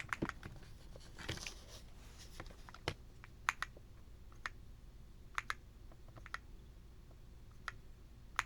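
Scattered single key presses on an Aula F75 mechanical keyboard with Strawberry Mint switches: about a dozen sharp clicks at uneven intervals, a few close together at the start.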